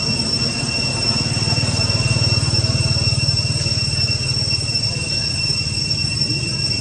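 Steady high-pitched insect drone in the forest canopy, unbroken throughout, over a low rumbling hum that swells slightly in the middle.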